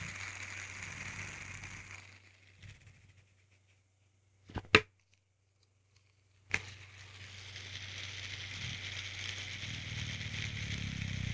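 Hand spinner whirring on its bearing and winding down to a stop. Then come two sharp clicks, and after the second it is flicked into a fresh spin whose whir builds up again.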